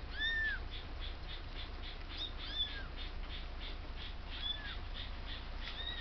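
A kitten mewing four times: high, thin cries, each rising and falling in pitch, about two seconds apart. Behind them runs a fast, even high chirping at about five a second.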